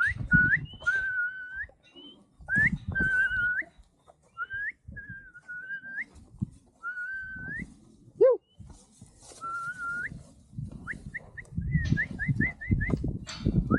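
A person whistling over and over: drawn-out whistles that sweep up and then hold, then a quick run of short rising chirps about eleven seconds in. One brief, loud falling call comes about eight seconds in, and low knocks and clatter run underneath.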